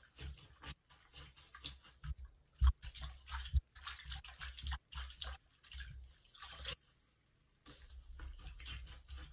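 Soaked sponge squeezed and pressed by hand in shallow soapy water in a sink: irregular wet squishes, splashes and drips, with a short lull about seven seconds in.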